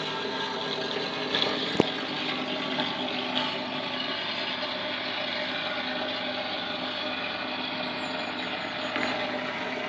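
Steady drone of a passing river cargo barge's diesel engine, with a single sharp click about two seconds in.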